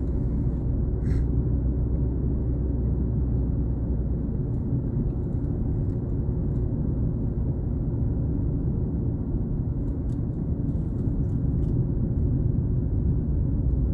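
Steady low road and engine rumble heard from inside a moving vehicle.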